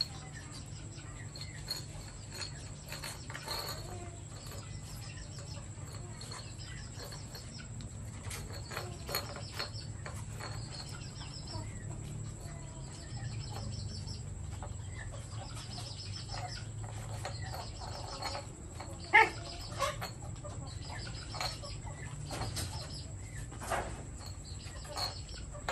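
Puppies playing, with small squeaks and yips and one sharper yelp about nineteen seconds in. Behind them run a steady low hum and faint high chirps that repeat about once a second.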